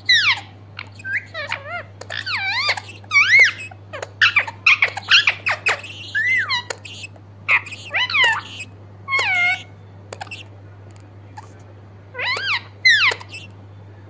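Rose-ringed parakeet chattering in a quick run of short, squeaky calls that swoop up and down in pitch, pausing for a couple of seconds near the end before two more calls.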